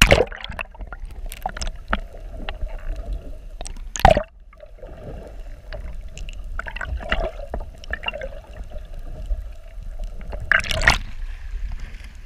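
Sea water heard through a camera dipped below the surface: muffled gurgling and sloshing with a low rumble. Loud splashes come at the start, about four seconds in, and near the end as it breaks the surface.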